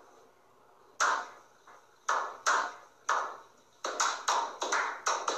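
A slow clap: single hand claps, each with a short ringing echo, about a second apart at first and speeding up to several a second near the end.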